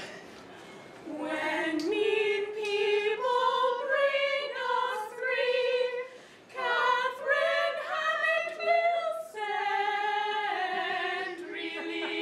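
A small group of women singing together a cappella, with no instruments. The singing starts about a second in and breaks off briefly about halfway through.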